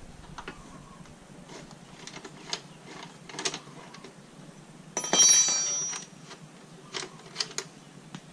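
Scattered metal clicks and taps as a 12 mm wrench works the bolt on a motorcycle exhaust clamp, with one loud metallic clank about five seconds in that rings for about a second.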